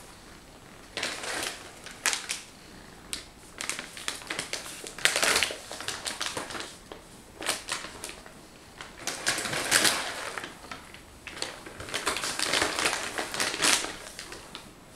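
Packaging being handled: a cardboard box and cat-food tins moved about, with rustling and crinkling and a run of small sharp clicks and knocks in uneven spells.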